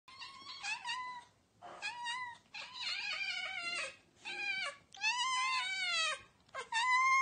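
Siamese-type cats meowing: a run of about eight drawn-out calls, one after another, each rising and then falling in pitch.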